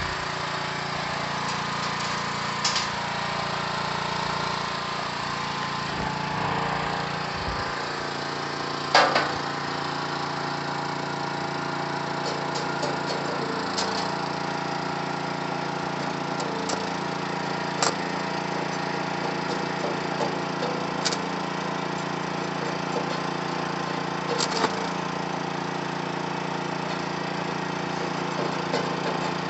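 Stick welding with 1/8-inch 7018 rod at about 130–135 amps: a handful of short, sharp cracks spaced several seconds apart as the rod is struck and tack welds are laid. Under them runs a steady machine hum.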